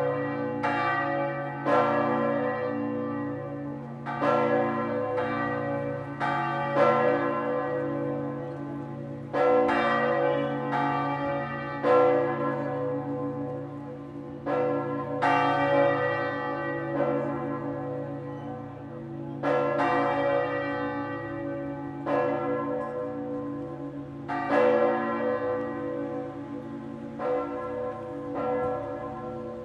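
Church bells swinging in the tower and ringing together, with strikes every one to two seconds at an uneven beat. Each stroke rings on into the next over a steady low hum.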